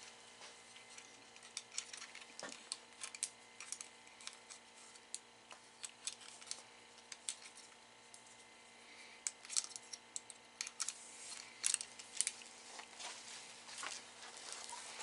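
Faint, scattered small clicks and rattles of a paracord strap's carabiners and an AR pistol being handled and reattached, with some rustling.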